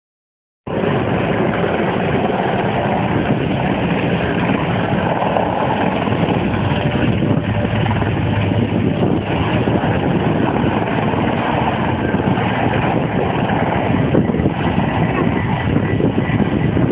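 Helicopter running steadily, its engine and rotor making a constant loud noise that starts abruptly just under a second in, recorded on a mobile phone.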